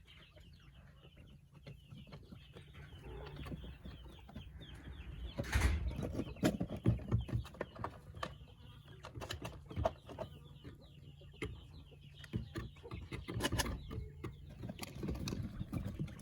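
Poultry clucking and calling, with scattered short knocks and clicks mixed in, busier from about five seconds in.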